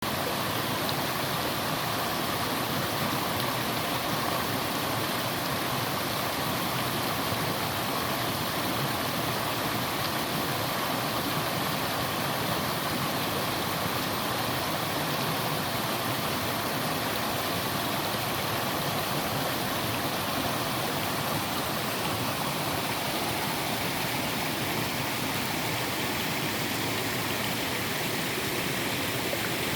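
Small mountain waterfall and stream, water falling and rushing steadily over mossy rocks.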